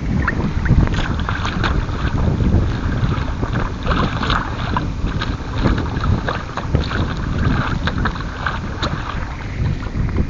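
Wind buffeting the microphone in a steady low rumble, with water splashing and slapping irregularly against the hull of a small inflatable-kayak trimaran under sail.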